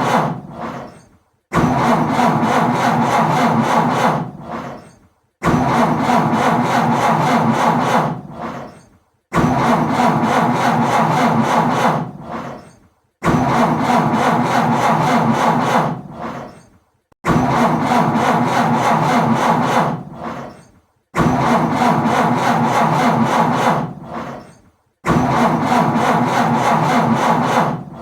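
A car's starter cranking the engine over again and again without it catching. About seven tries come roughly every four seconds, each a rasping crank of two to three seconds that dies away into a brief gap: an engine that won't start.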